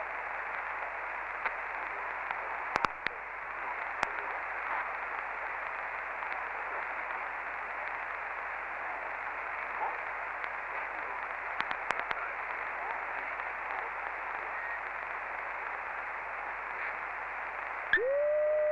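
Sommerkamp CB transceiver hissing with an open channel: steady radio static with scattered clicks and crackles. Near the end a signal cuts in with a sudden jump in level and whistling tones.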